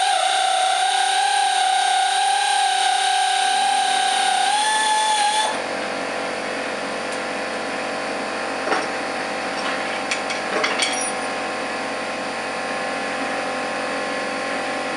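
A power tool runs the last mounting bolt out of a Ford 8N tractor's hydraulic pump, a steady whine that wavers slightly in pitch. It stops about five seconds in. A lower steady hum carries on, with a few metal knocks as the pump comes free.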